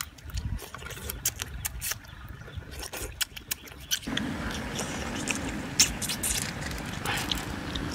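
Eating sounds: irregular sharp clicks and smacks of chopsticks and snail shells while cooked river snails are picked up and eaten. About halfway the background hiss rises.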